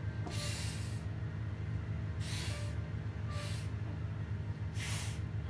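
A young child blowing at birthday cake candles in four separate breathy puffs, the first the longest; the candles stay lit through the tries.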